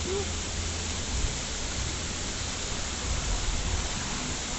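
Steady rushing noise with a low, fluctuating rumble underneath.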